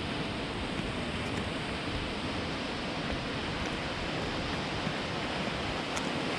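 Steady rush of ocean surf, with wind rumbling on the microphone.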